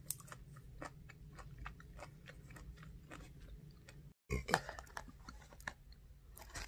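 A person eating, quiet chewing with irregular small clicks and crunches, broken by a brief gap a little past four seconds.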